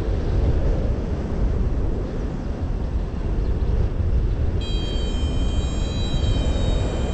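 Airflow rushing over the microphone of a paraglider in flight, a steady deep buffeting rush. About two-thirds of the way in, a thin steady high-pitched tone starts and holds.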